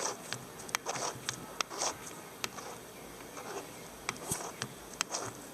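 Sharp dry clicks and short scrapes from a removed Jetta A4 starter motor's pinion drive being worked by hand. This unlubricated part is the one that makes the noise when the car is started.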